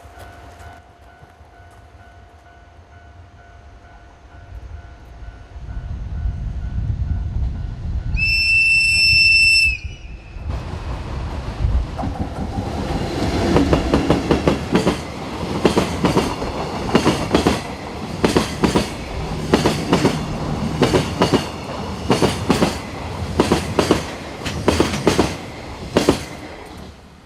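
A JR Freight EF64 1000-series electric locomotive hauling a freight train approaches with a rising rumble and sounds its horn once, for about a second and a half. Then the train passes, its wheels knocking over the rail joints in a steady, regular clickety-clack until the end.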